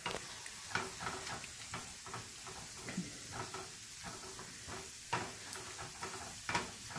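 Chopped onion and garlic sizzling as they fry in a pan while being stirred, the utensil scraping and knocking against the pan in short strokes, two of them louder about five and six and a half seconds in.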